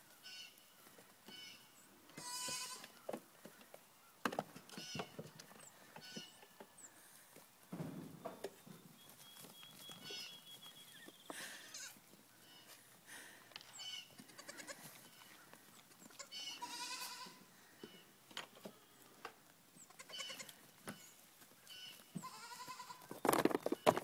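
Goats, among them young kids, bleating a few times, with the loudest bleat near the end. Short light knocks and rustles come between the calls.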